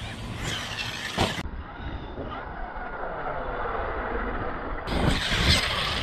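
Arrma 6S brushless RC truck driven hard across grass, its electric motor whining up and down in pitch with the throttle. There is a sharp knock about a second in, and the sound grows louder about five seconds in.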